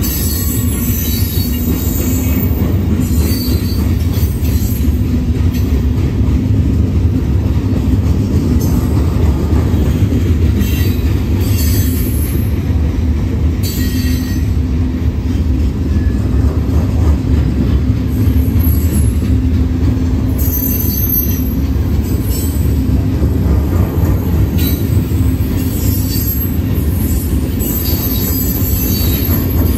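Freight train of gondola and hopper cars rolling past: a steady heavy rumble of steel wheels on the rails, with high-pitched wheel squeal coming and going.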